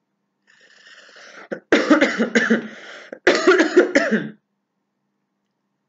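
A woman coughing in two fits, the first about two seconds in and the second just after it, each made of several sharp coughs with her voice in them, after a breathy intake of air.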